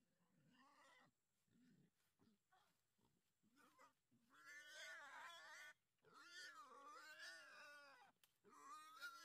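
Faint animal calls: from about four seconds in, three long, wavering, drawn-out cries follow one another, each lasting a second or more.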